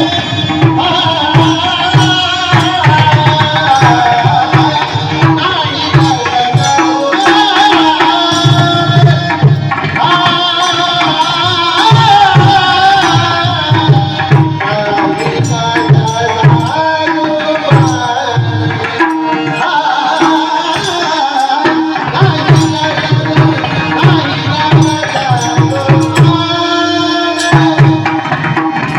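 Marathi devotional kirtan music: a steady tabla rhythm under a bending, ornamented sung melody, with frequent sharp percussive clicks over the top.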